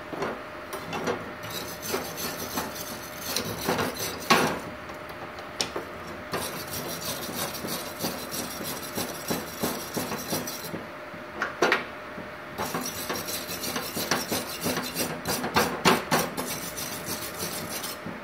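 Steel wire brush scrubbing a welded aluminium plate in runs of quick strokes, with short pauses between runs. A faint steady hum sits underneath.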